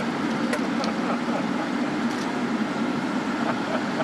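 Steady hum and rush of a space station module's ventilation fans, with a few faint clicks from handling food packets.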